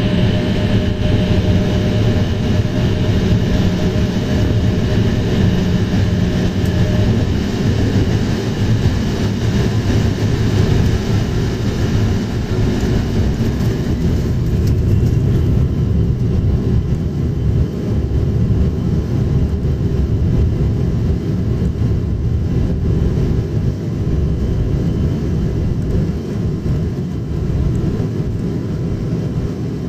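Cabin noise of an Embraer E190 airliner on its takeoff run: a steady, loud rumble from its twin GE CF34-10E turbofan engines and the rolling wheels, with a thin steady whine that stops about seven seconds in.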